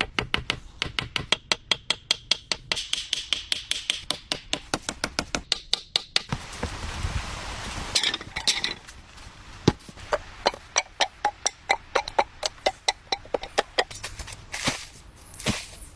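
Rapid, repeated strikes of a hand tool, about five or six a second for the first six seconds, then a rushing noise for a couple of seconds, then a slower run of strikes, with two swishes near the end.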